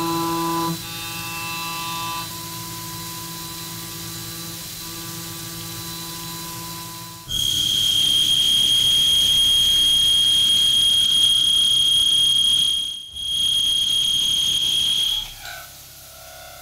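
CNC machining: a half-inch three-flute ball nose end mill spinning at 10,000 rpm cuts with a steady pitched hum. About seven seconds in, a 1.5-inch insert drill takes over with a loud, steady, high-pitched whine, which breaks off briefly and stops about a second before the end.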